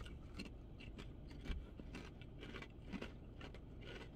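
A person chewing a crunchy ridged Ruffles potato chip with the mouth closed. It sounds as a faint, irregular series of crisp crunches.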